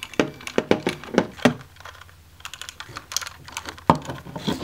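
Hard plastic Lego Technic parts clicking and knocking as they are handled and fitted together, irregular clicks with a quick run of them in the second half and a sharper knock about four seconds in.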